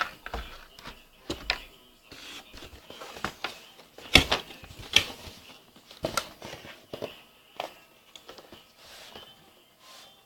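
Irregular rustling, crackling and knocks from handling paper packaging, with sharp clicks at uneven spacing, the loudest about four seconds in.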